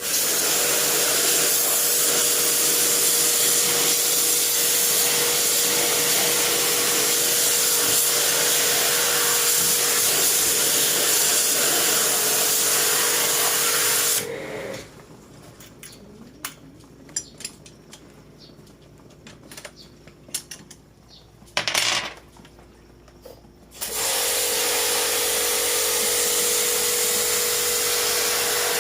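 Electric pressure washer running and spraying water on an air conditioner during cleaning: a steady motor tone under a loud hiss. It stops about halfway through, gives one short burst a few seconds later, and runs again near the end.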